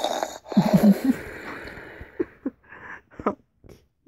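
A person's breathy, wheezy laughter: a loud rush of breath, then a few short falling laughs about a second in, thinning out into small breaths and clicks.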